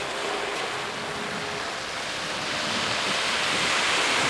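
Sea water rushing and washing around, with wind on the microphone; a faint steady engine hum from the jet ski for the first second or so. The rush of water grows louder near the end.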